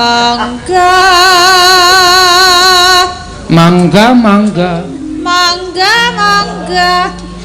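Javanese sinden-style vocal singing: a high female voice holds one long note with a wide vibrato, then moves into shorter ornamented phrases, with a lower voice joining in the second half.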